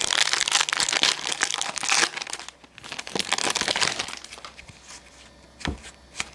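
Crinkling plastic as trading cards are handled, in two dense spells in the first four seconds, then quieter, with a single short knock near the end.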